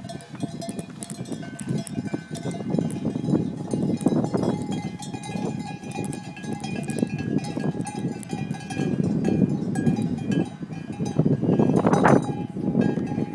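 Many sheep bells clanking and ringing as a large flock of sheep moves past, with sheep bleating now and then; one loud bleat near the end.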